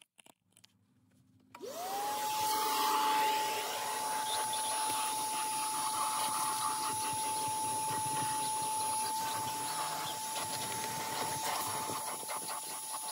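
A vacuum cleaner switches on about one and a half seconds in, its motor spinning up quickly to a steady whine, with irregular scraping and rubbing over the motor noise.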